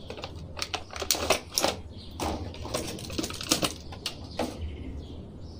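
An action figure's cardboard window box being opened and handled as the figure is pulled out, with irregular clicks and rustles.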